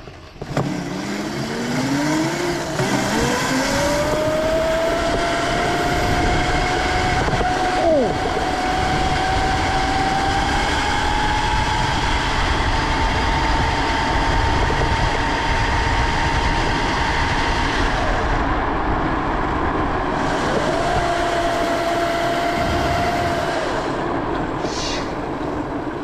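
The 48-volt, 2,000-watt electric motor of a chain-drive Razor MX400 mini bike under throttle. Its whine rises in pitch over the first few seconds as the bike accelerates, then holds high at speed, and is loud. The whine drops away about two-thirds through and comes back briefly near the end, over a steady rushing noise.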